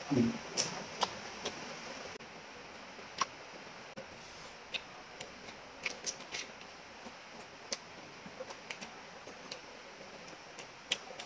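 Close-miked chewing and mouth sounds from eating beef curry and rice by hand: irregular wet clicks and smacks a few times a second, with a brief low sound right at the start.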